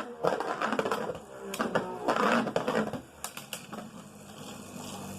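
Beyblade Burst spinning tops clashing and grinding against each other in a plastic stadium, with rapid clattering hits over the first few seconds, then a quieter, steady whir as the tops keep spinning.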